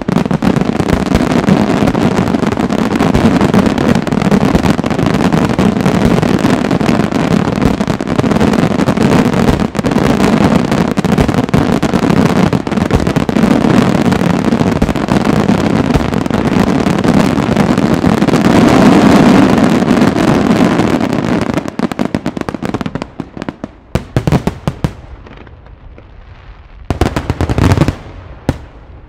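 Finale barrage of an aerial fireworks display: shells and comets firing and bursting in a dense, continuous run of overlapping bangs. After about 22 seconds it thins into a few separate bursts, with a last loud salvo near the end before it dies away.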